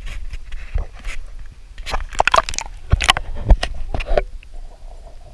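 A dog's muzzle plunging into shallow pool water, with sloshing and splashing and a run of irregular knocks and thuds, loudest about three seconds in. It goes quieter after about four seconds.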